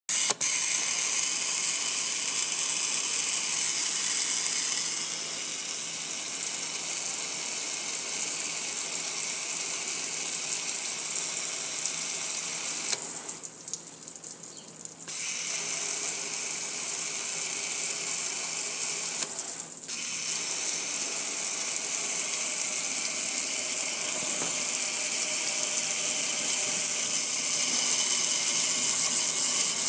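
Water sprayed from a garden hose nozzle onto a gas grill and wet concrete: a steady hiss of spray that stops for about two seconds near the middle and cuts out briefly again a few seconds later.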